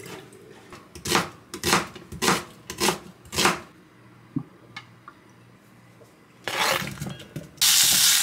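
Kitchen clatter: five short scraping clatters of cookware and utensils, about half a second apart. Near the end, food goes into a hot pot and starts sizzling loudly.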